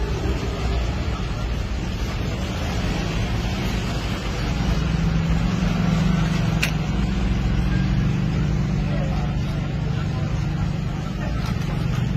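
Steady low drone of a running engine over background noise, growing a little louder about four and a half seconds in, with a single sharp click near the middle.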